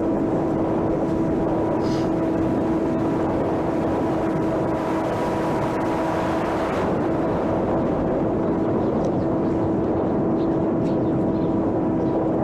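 Electric motor and propeller of a homemade RC airplane running at a steady pitch, a constant hum under a heavy rush of wind noise. The hiss swells for a couple of seconds mid-way.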